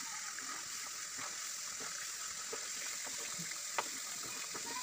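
Biscuit dough deep-frying in a pan of hot oil: a steady sizzle with faint crackles, and one light tap about four seconds in.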